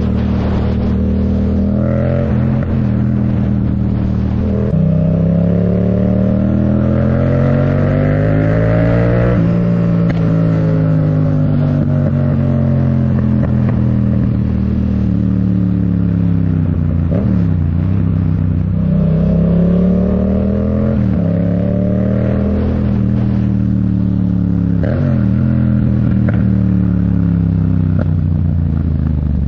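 Yamaha MT-07's parallel-twin engine through a MIVV Delta Race full exhaust, heard from the rider's seat: revs climb through a gear change to a peak about nine seconds in, then fall away steadily as the bike slows. After that the revs rise and drop again several times with further gear changes.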